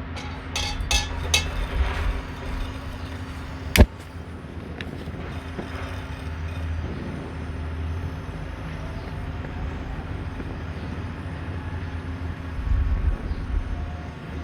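Coleman 242B kerosene lantern burning in a dry run without a mantle, a steady rushing flame with fuel now flowing constantly. A few light clicks come in the first second or so, and a sharp knock about four seconds in.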